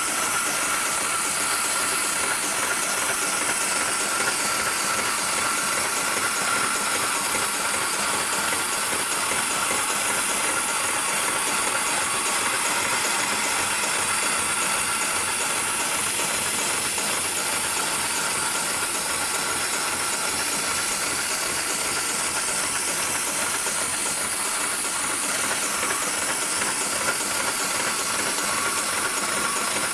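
Steady mechanical hiss and hum of a heavy-duty programmable industrial sewing machine running, with no distinct stitch strokes.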